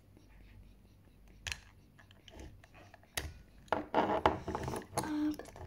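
Scissors snipping and toy packaging being handled: a single click early, then a busier stretch of cutting, rubbing and rustling in the second half.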